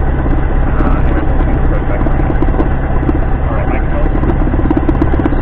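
Single-engine light aircraft's piston engine and propeller running steadily, a constant drone heard from inside the cockpit.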